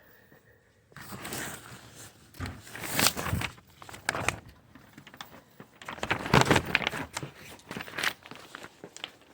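Irregular rustling and scuffing noises, starting about a second in, loudest in a few short bunches.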